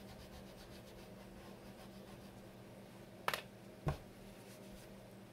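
White chalk pastel rubbed softly on paper, a faint scratching over a low steady room hum, followed by two short clicks about half a second apart a little past the middle.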